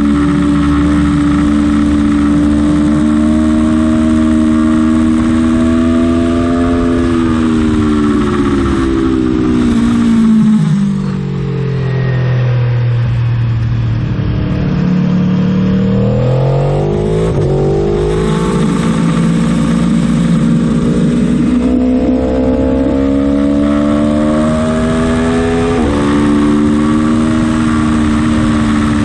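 Aprilia Tuono motorcycle engine at high revs, dropping in steps through downshifts under braking from about seven seconds in, running low for a few seconds through a corner, then climbing back up through the gears, with an upshift near the end.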